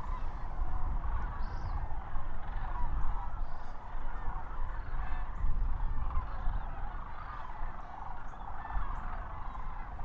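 A large flock of sandhill cranes calling all at once, a dense, unbroken chorus of many overlapping calls, over a low rumble.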